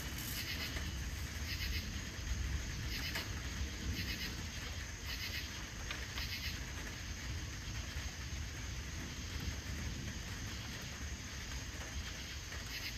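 Crickets chirping in short pulsed bursts about once a second, stopping about halfway through, over a steady low rumble.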